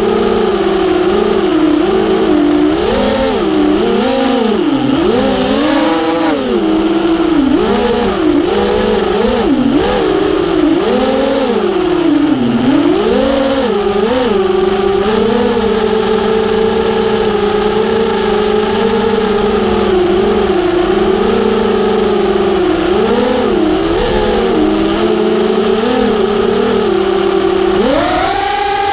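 FPV racing quadcopter's 2500 kV brushless motors and propellers, heard from the onboard camera, whining with a pitch that rises and falls constantly with the throttle. The pitch holds fairly steady for several seconds midway, then jumps sharply higher near the end as the throttle is punched.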